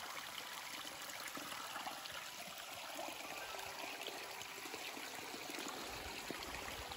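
Steady trickle of running water, with many small splashing ticks.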